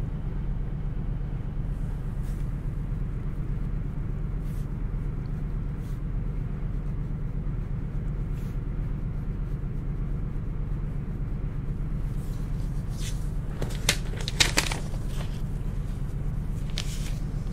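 A steady low hum runs throughout, with faint scratching of a ballpoint pen on cereal-box cardboard. About three-quarters of the way in comes a louder burst of rubbing and rustling as a paper sheet is slid across the cardboard.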